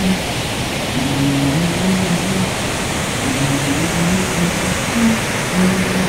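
Steady rushing roar of a large waterfall, the Krimml Waterfalls, with a slow line of low, held musical notes playing through it.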